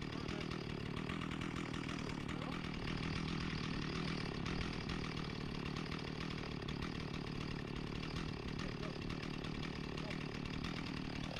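Old two-stroke chainsaw running steadily at an even engine speed.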